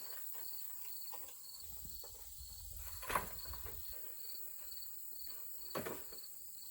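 Insects chirping steadily in a fast, even pulse, about three chirps a second. Two short knocks, about three seconds in and near the end.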